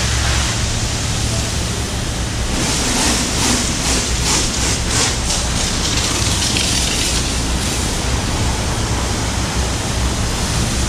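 High-pressure water jet spraying onto a truck's tilted cab and chassis: a steady hiss of spray hitting metal, brighter from about three to seven seconds in, over a steady low hum.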